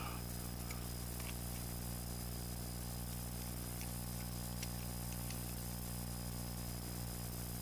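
A steady mechanical hum from an engine or motor running at an even speed, with a few faint light clicks as small metal bolts are handled on the oil filter cover.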